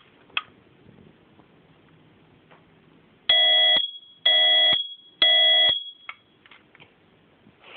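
A battery-powered smoke alarm with a 10-year battery sounds its test. After a small click about half a second in, it gives three loud, steady, high-pitched beeps of about half a second each, half a second apart, in the temporal-three alarm pattern.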